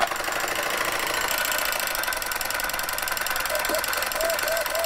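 Small 3D-printed four-solenoid electric piston engine in a model boat running, switched on abruptly: a fast, steady mechanical clatter of the solenoid plungers being pulled in and out.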